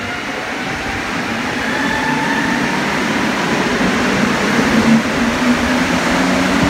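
Montreal Metro MPM-10 (Azur) rubber-tyred subway train at the platform: a steady hum with a faint rising whine, growing gradually louder.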